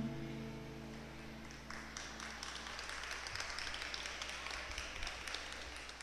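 The last held note of a song dying away, followed from about two seconds in by faint, light applause from a small audience.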